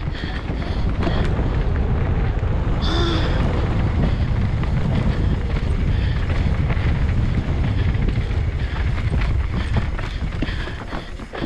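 Wind buffeting a helmet-mounted camera's microphone at downhill speed, over the rumble of knobby tyres on a dirt trail and the rattle and clack of a GT Fury downhill mountain bike over rocks and bumps. A short high-pitched sound cuts in briefly about three seconds in.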